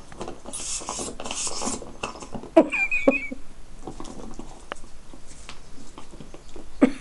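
Two dogs, a Siberian Husky puppy and a Springador, play-wrestling on a tiled floor: claws clicking and scrabbling on the tiles, two breathy snuffles about a second in, a couple of sharp knocks, and a brief high wavering squeak just after the middle.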